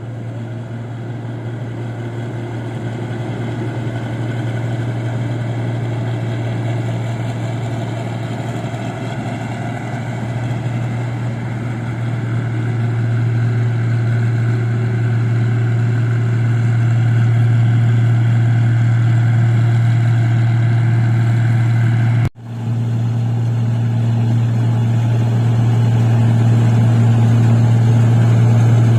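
Engine of a paddy (rice) combine harvester running steadily with a low, even hum that slowly grows louder. It cuts out sharply for a moment about two-thirds through, then comes straight back.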